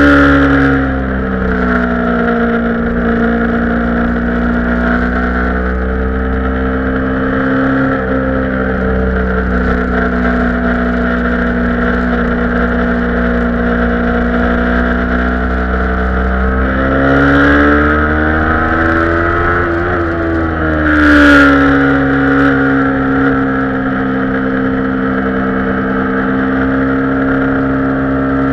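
Kawasaki Ninja 250 parallel-twin engine heard onboard, running at steady road revs with wind noise over it. The revs dip about a second in, climb for a few seconds from about seventeen seconds in, then drop sharply just after twenty seconds.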